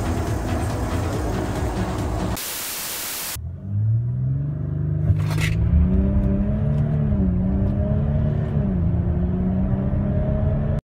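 Audi Q7 3.0 TDI V6 diesel on a Stage 2 tune with full exhaust: a low exhaust rumble at the tailpipes for about two seconds, then about a second of even hiss. Then the engine pulls under hard acceleration, its drone rising in pitch with two dips as the gearbox shifts up.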